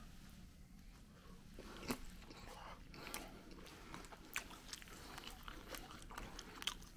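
Faint close-up chewing of barbecue-sauced fries, with scattered small wet clicks from the mouth.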